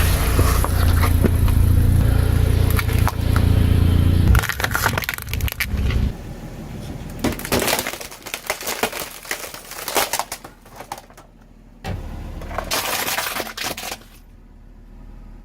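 A car's engine runs loudly while its tyres roll over and crush objects, with many sharp cracks and crunches. About four seconds in the engine sound drops away, and scattered cracking and crunching continues, with a short burst of crunching near the end.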